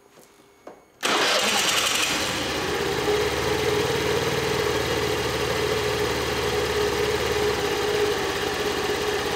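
Honda Dio Cesta AF68 scooter's small four-stroke single-cylinder engine starting about a second in and settling into a steady idle, run briefly after a fresh oil change to circulate the new oil before riding.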